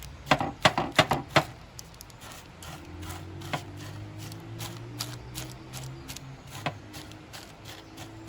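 A utensil pressing and tapping a chocolate-coated puffed-rice mixture flat in a paper-lined glass tray: a quick run of knocks in the first second and a half, then occasional clicks. A low steady hum comes in about three seconds in.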